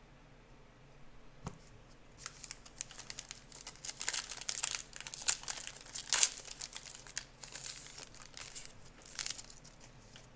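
A trading-card pack wrapper being crinkled and torn open by hand, a run of crackling rips that is busiest in the middle.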